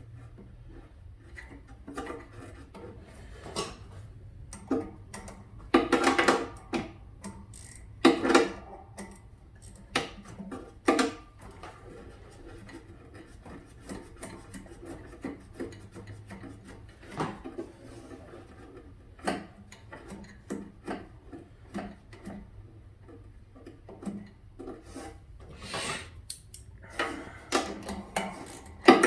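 Irregular scraping, rubbing and clicking of hands and tools working on the mower, with a few louder scrapes about six and eight seconds in.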